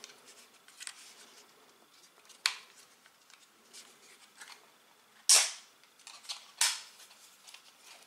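A few sharp plastic clicks, the loudest about five seconds in, as the battery cover is pressed and snapped onto a plastic remote control.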